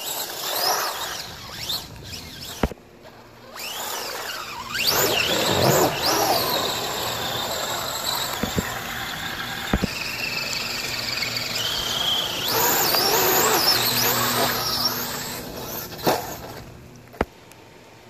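Brushless electric motor of an RC crawler truck whining as it is revved, the pitch sweeping up and down again and again, with water and mud splashing as the truck ploughs through a flooded ditch.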